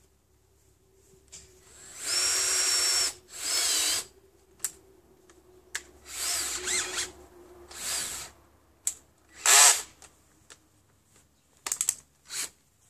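Cordless drill run in a series of short bursts on wooden roof battens, while the battens are pre-drilled and screwed in place. The first two runs last about a second each, the loudest is a short burst about two thirds of the way in, and the rest are briefer, with small clicks between.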